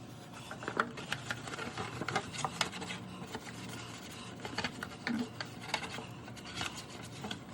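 Scrubbing and wiping a plastic refrigerator part with spray cleaner: irregular scratchy rubs and scattered light clicks and knocks.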